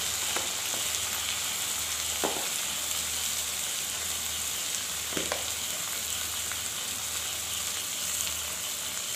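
Tomatoes, onion and turmeric frying in hot oil in a kadhai: a steady sizzle with a few faint crackles.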